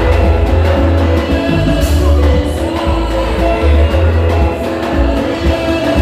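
Live band music through a PA with a strong pulsing bass line, a man's voice singing over it.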